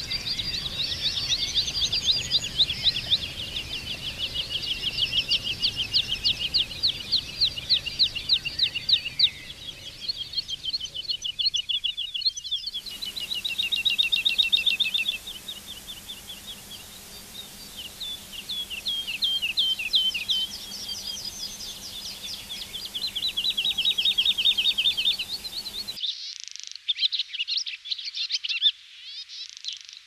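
Songbirds singing in three cut-together clips, each a run of fast repeated notes and trills. Near the end a barn swallow twitters.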